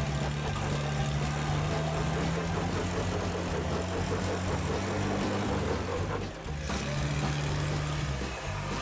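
Toyota Land Cruiser FZJ80's straight-six engine running at low revs as the truck crawls over rock ledges, with a brief dip in level about six seconds in.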